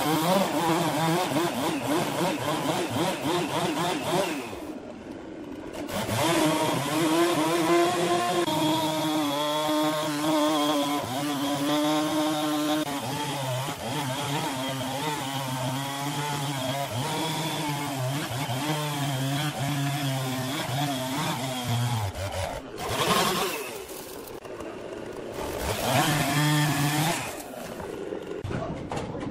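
Husqvarna two-stroke chainsaw running at high revs as it cuts through a large log. The engine eases off briefly twice, about five seconds in and again past twenty seconds, then comes back up.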